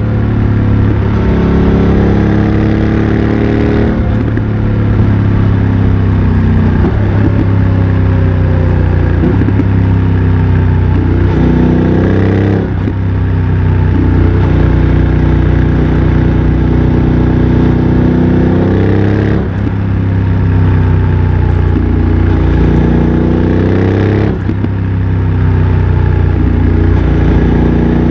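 BMW F900 XR's parallel-twin engine through a MIVV X-M1 aftermarket exhaust, under way. Its pitch climbs and falls as it pulls through the gears, with sudden changes about four times.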